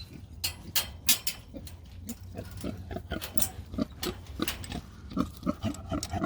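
A pig grunting in a quick run of short grunts, several a second, with a few sharp knocks in the first second or so.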